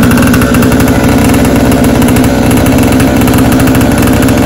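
Small 49cc mini ATV engine running steadily and loud, its exhaust coming through a homemade muffler wrapped in foil and packed with steel wool. The makeshift silencer has done little to quiet it.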